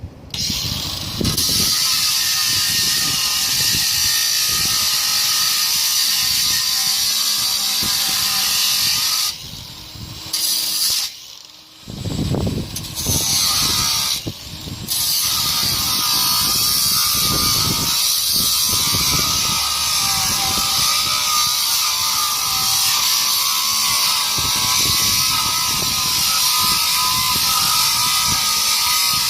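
Ryobi cordless angle grinder cutting metal: a loud, steady abrasive hiss with a wavering whine. It stops briefly twice around ten to twelve seconds in and once more near fourteen seconds, then cuts on steadily.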